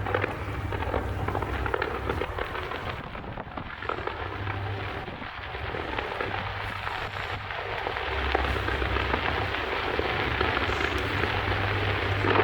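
Fireworks crackling: a dense, continuous crackle of many small pops, over a steady low hum.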